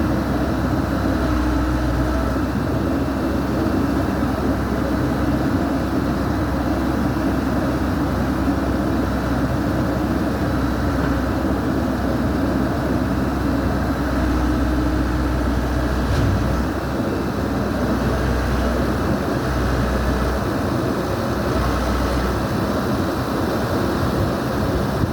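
Backhoe's diesel engine running steadily, its low rumble shifting up and down a few times.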